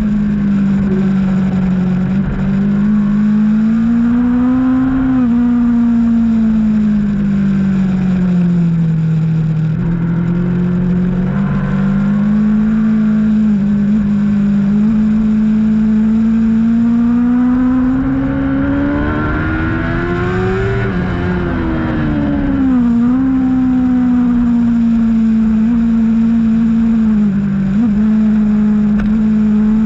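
Racing motorcycle engine running steadily at moderate revs, its pitch slowly rising and falling with the throttle, with a longer climb and a quick drop about two-thirds of the way through.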